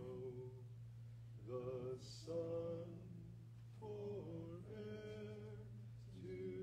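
A man singing a hymn unaccompanied, slow held notes in short phrases with breaks between them, over a steady low hum.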